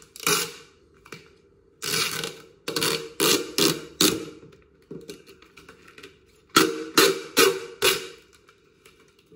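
Vinyl wrap's backing paper being peeled away and handled: a string of short, sharp rustles in clusters, a quick run of them in the first half and four sharper ones later on, with short pauses between.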